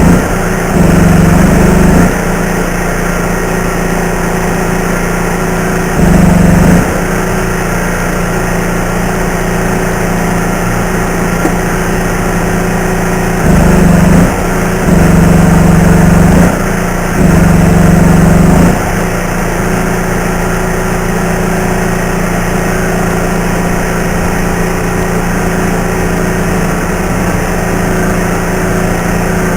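Welding power source running with a steady machine hum, swelling louder for a second or two at a time, several times in the first two-thirds.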